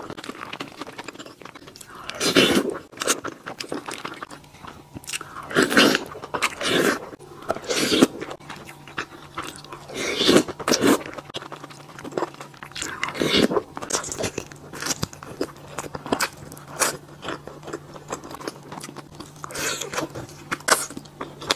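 Close-miked eating sounds: a person biting and chewing mouthfuls of rice and home-style dishes, in irregular wet bites and chews every second or so.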